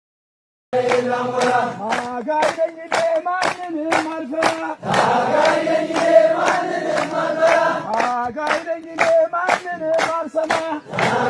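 A crowd of men singing a chant together to fast, steady hand-clapping, about three claps a second. It starts suddenly about a second in.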